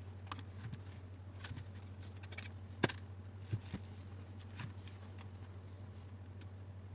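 Faint scattered clicks and small knocks of hands handling and opening the housing of a DeWalt angle grinder, with one sharper click nearly three seconds in, over a steady low hum.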